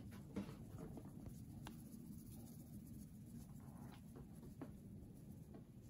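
Very faint shaking of dried Italian seasoning from a plastic shaker bottle onto sliced chicken, with a few light ticks over a low hum.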